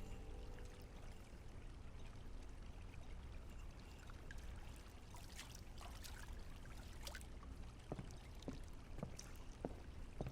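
A steady low rush like running or pouring water, with a few faint clicks and ticks in the second half; the last of a music cue fades out at the very start.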